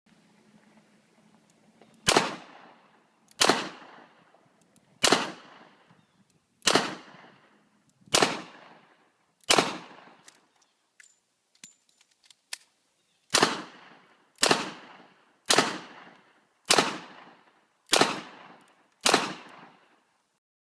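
Smith & Wesson M1917 .45-calibre revolver fired six times about a second and a half apart, then a quick reload with a few light metallic clicks, then six more shots fired a little faster. Each shot has a long echo tail.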